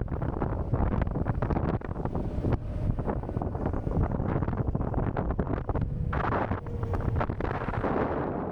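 Wind buffeting the microphone of a rider on a moving electric motorcycle: a steady, rough rumble with louder rushes about six seconds in and again near the end.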